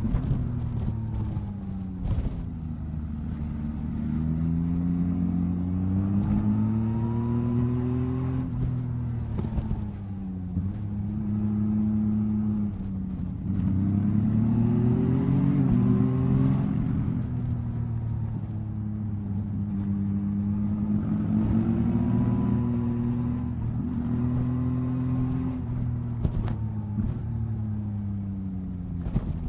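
Yamaha MT-09 SP three-cylinder motorcycle engine under way, revs rising and dropping back again and again as the rider accelerates and eases off along the road.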